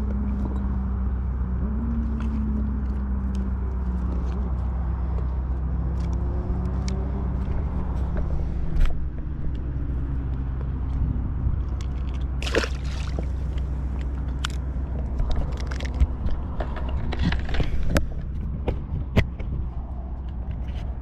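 A boat engine running nearby over a steady low rumble, its hum sliding slowly down in pitch in the first few seconds. From about twelve seconds in, scattered sharp clicks and knocks.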